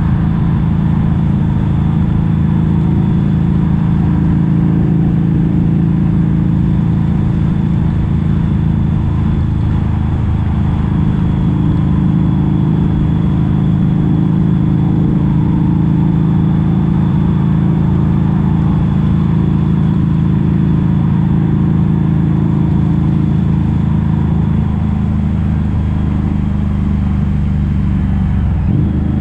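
Harley-Davidson V-Rod Muscle's V-twin engine running at a fairly steady speed through Vance & Hines slip-on exhausts with the catalytic converters deleted. The pitch holds level for most of the stretch and shifts near the end.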